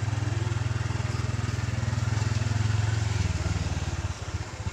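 Honda Dash 110's single-cylinder four-stroke engine running at low speed under way. The engine note drops slightly about three seconds in and goes briefly quieter near the end before picking up again.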